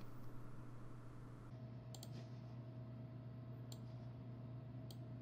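A few sharp computer mouse clicks, four spread over several seconds, over a steady low electrical hum, with a hiss in the first second and a half.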